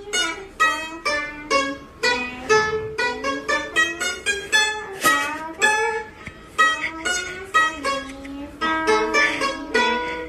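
Background music: a quick melody of plucked-string notes.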